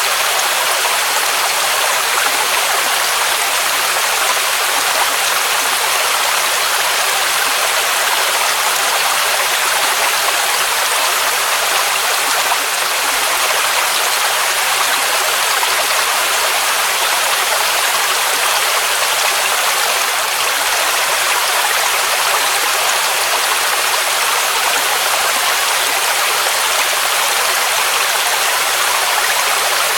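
Waterfall rushing steadily, a dense unbroken hiss of falling water with little low rumble.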